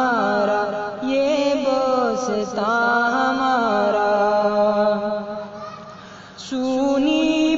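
A man's voice singing an Urdu patriotic tarana in long held notes with sliding ornaments. It fades about six seconds in, and the next phrase starts shortly after.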